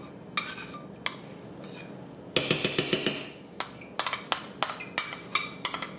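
A metal spoon scraping and tapping against a small glass bowl as tomato paste is worked out of it into the pot: a few separate clinks, a short burst of scraping halfway through, then quick taps about four a second.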